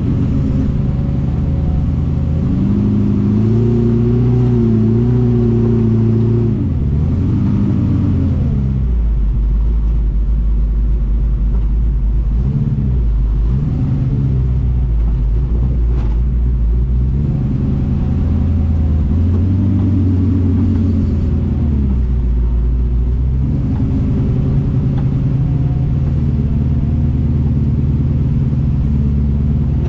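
Engine of an FJ40-based off-road buggy heard from inside the vehicle. Its pitch rises and falls repeatedly as the throttle is worked on and off, with most of the sound low and rumbling.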